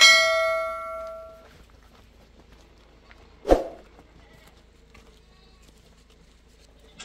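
A metal door clangs shut, the sheet metal ringing for about a second and a half. A second, duller knock follows about three and a half seconds in.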